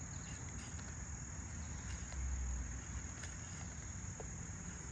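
Steady high-pitched chirring of insects, with a low rumble that swells briefly about two seconds in. A few faint ticks come from a hatchet blade scraping bark off a small log.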